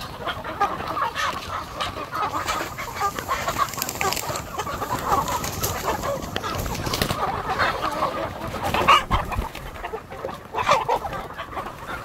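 A crowded flock of chickens clucking together in a steady, busy chatter, with a few louder calls standing out.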